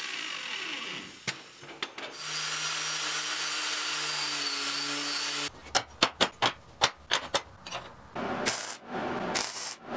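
Angle grinder running on steel square tubing to clean it up. It is followed by sharp metal clicks and clacks as the pieces are clamped and positioned, then several short crackling bursts of MIG tack welds from a Hobart 140 welder near the end.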